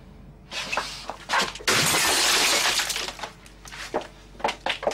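Glass smashing: a few sharp crashes starting about half a second in, a long loud spell of shattering, then small pieces tinkling as they fall and settle.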